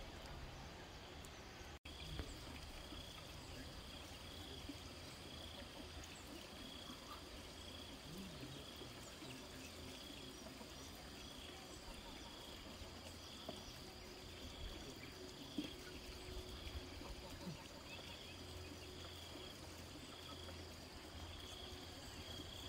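Faint insect chirping, a short high pulse repeated steadily about once a second, over low outdoor rumble. The sound cuts out for an instant about two seconds in.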